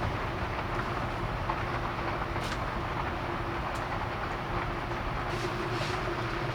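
A vehicle running steadily: a constant low drone over an even rush of road noise, with a few faint light ticks.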